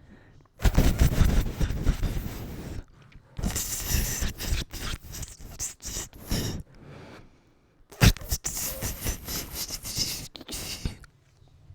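A man imitating a snake with his mouth: three long hisses, each about two to three seconds, breathy and close on the microphone.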